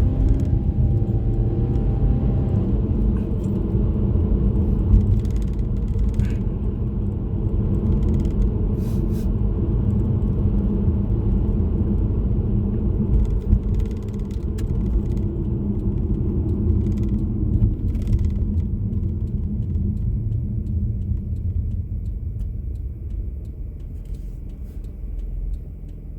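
Car being driven, heard from inside the cabin: a steady low rumble of engine and road noise, with the engine note shifting in the first couple of seconds.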